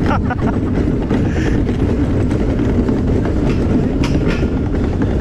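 Luge cart's wheels rolling fast over the concrete track: a loud, steady rumble and rattle, with a couple of sharper clacks about four seconds in.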